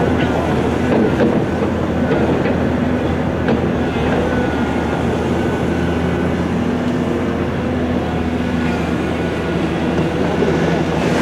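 Heavy diesel earthmoving machinery, a Volvo EC700 excavator and a Perlini 655 dump truck, running steadily during loading, with a few faint knocks.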